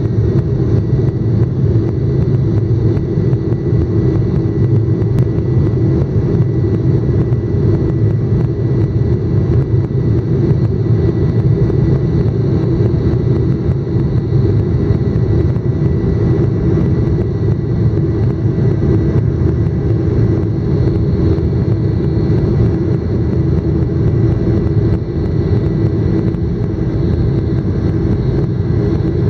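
Jet airliner's engines and rumble heard from inside the cabin as it rolls along the runway. The sound is a loud, steady drone with a steady hum and does not change.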